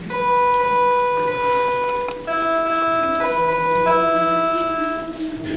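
Sustained organ-style chords on a keyboard instrument, held steady and moving to new chords a few times, starting about two seconds in.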